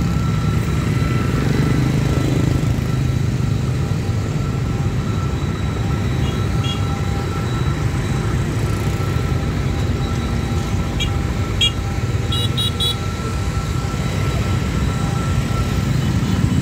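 Dense motorbike traffic running and revving past at close range. A steady high-pitched tone sounds over it throughout, and there are a few short horn beeps, mostly around two-thirds of the way through.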